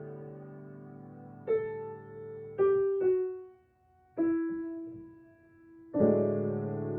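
Solo piano playing slowly and softly. A held chord fades, then a few separate notes ring out, one long note is left to die away, and a fuller chord comes in near the end.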